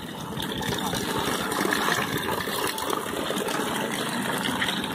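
Steady rain falling on a cobblestone street and on an umbrella held overhead, an even hiss with no breaks.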